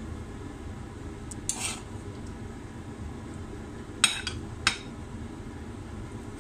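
A few light clinks of kitchenware: a soft one about a second and a half in, a sharp one just after four seconds and a smaller one half a second later, over a steady low background hum.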